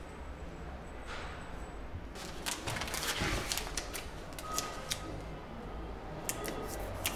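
A series of light clicks and taps with some rustling, as strips of blue tape are pressed onto a wooden door frame and a sheet of paper is handled.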